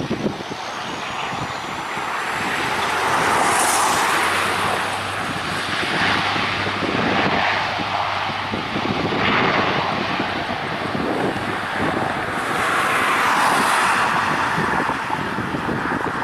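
A Bombardier Dash 8 Q400's twin turboprop engines run as the airliner rolls along the runway, with a dense propeller and turbine sound that swells and fades as the aircraft moves. A faint rising whine comes through in the first few seconds.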